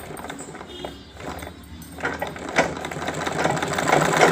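Small sewing machine starting up about two seconds in: a couple of clicks, then running steadily and getting louder toward the end, with background music under it.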